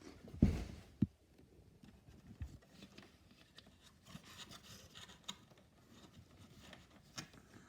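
Plastic parts of a Hoover Windtunnel upright vacuum being handled with the motor off: two thumps in the first second, then faint rubbing and light clicks as the exhaust filter and its cover are worked into place.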